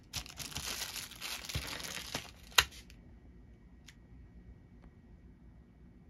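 Plastic packaging crinkling as it is handled, with one sharp click about two and a half seconds in. The crinkling stops about three seconds in.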